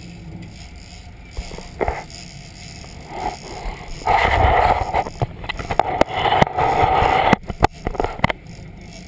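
Sea water rushing and splashing at the stern of a sportfishing boat, with scattered knocks and clatter, loudest through the middle and latter part.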